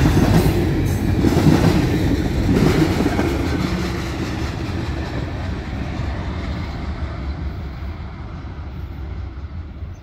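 Wheels of the last double-stack container well cars of a freight train rolling over the rails, loud and clacking for the first few seconds, then fading steadily as the end of the train moves away down the track.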